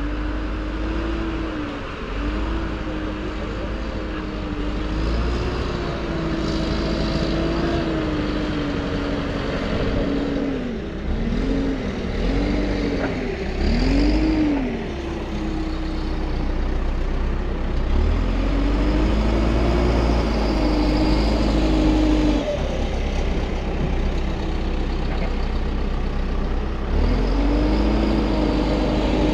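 Backhoe loader's diesel engine running and being revved up and down as the machine works and drives, its pitch rising and falling again and again over a deep rumble.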